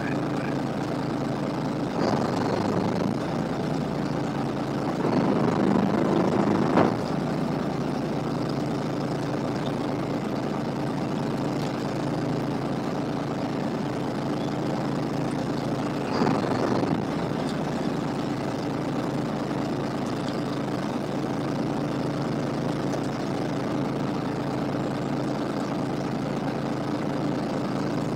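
Fishing boat's engine idling steadily. A few short swells of rushing noise come through, with a sharp click about seven seconds in.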